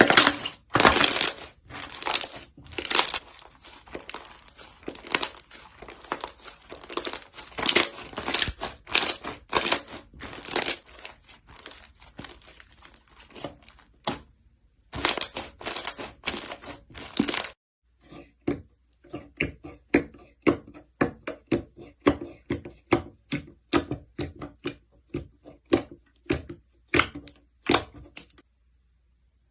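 Slime being squeezed and pressed by hand, giving repeated crackling, popping bursts. Near the middle the sound changes to a quicker run of short, sharp crackles, spaced fairly evenly.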